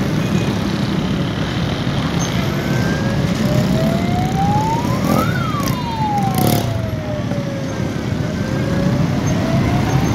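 A siren wailing slowly up and down in pitch, climbing to a peak about five seconds in, sinking, then climbing again near the end, over a steady rumble of vehicle engines and traffic. A short sharp burst of noise cuts in about six seconds in.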